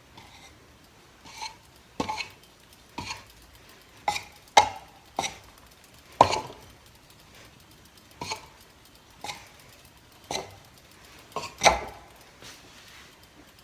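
Hunter Mayfair ceiling fan running, with about a dozen sharp clicks and clinks at uneven spacing, roughly one a second, several ringing briefly.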